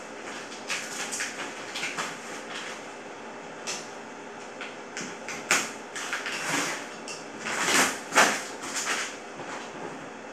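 Cardboard box being opened by hand: packing tape peeled and torn off the top and the flaps scraped, a string of irregular rips and rustles, loudest about eight seconds in.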